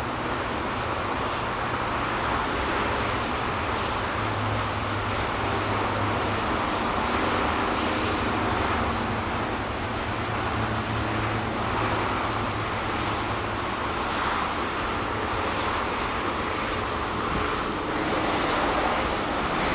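Steady distant road traffic noise, with faint engine hum drifting in and out and growing slightly louder near the end.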